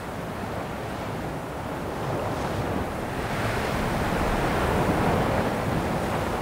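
Ocean surf breaking and washing up a sandy beach, a steady rush of waves that grows gradually louder.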